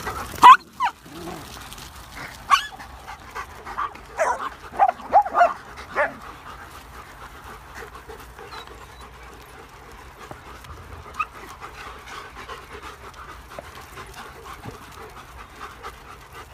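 A large pack of dogs on the move, panting, with a handful of short barks in the first six seconds, the loudest a sharp one about half a second in and a quick cluster between about four and six seconds.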